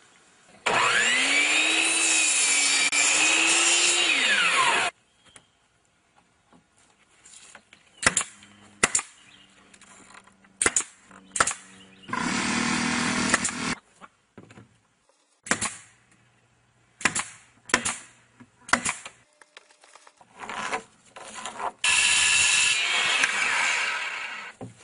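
Power tools working lumber. A saw motor runs loud for about four seconds, its pitch dipping and rising under load. Then come a series of sharp knocks and a short power-tool burst, and near the end a DeWalt circular saw cuts through a board.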